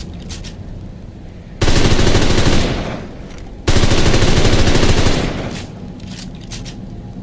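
MP38 submachine gun firing two bursts of fully automatic 9mm fire, the first about a second long and the second about a second and a half, each dying away in an echo.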